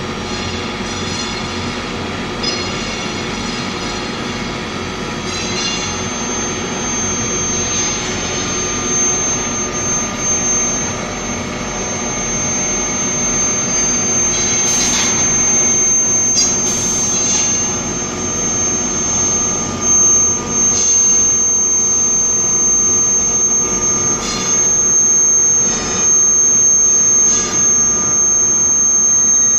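Induction heating furnace running: a loud, steady machine hum with several steady tones, joined about five seconds in by a piercing high whine. A few short knocks come in the second half.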